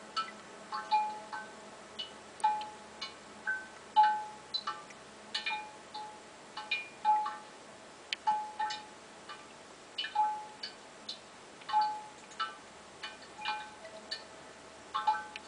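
Suikinkutsu, a buried inverted jar in a Japanese garden: water drops fall into its hidden pool. Each drop rings out as a clear, bell-like ping at one of several pitches with a short ringing tail, at an uneven pace of about one or two a second.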